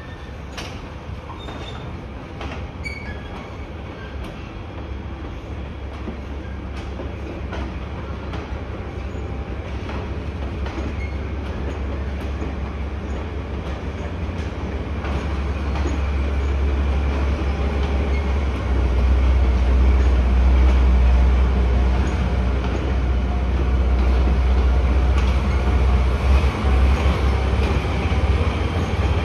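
C12 steam locomotive and its passenger coaches rolling slowly over station tracks during a shunting move: a low rumble that grows louder in the second half, with scattered rail clicks and a thin wheel squeal.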